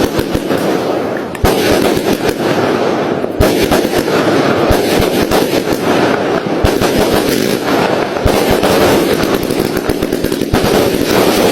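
Fireworks going off: a rapid, unbroken run of crackling pops and bangs, with sharper single booms scattered through it.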